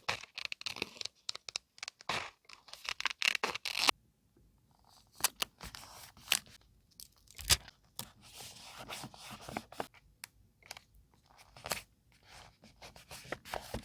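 Paper being handled and torn: dense rustling and tearing for the first few seconds, then scattered short scratches and sharp little taps.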